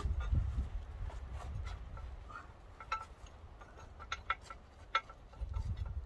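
Scattered light metallic clicks and clinks as a skidsteer track's bolts and bushings are handled and fitted, over a low rumble.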